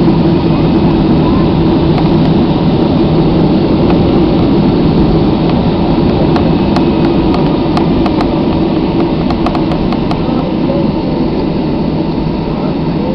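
Steady low rumble of an airliner's jet engines and rolling, heard inside the passenger cabin as the plane taxis after landing, with a few faint clicks around the middle.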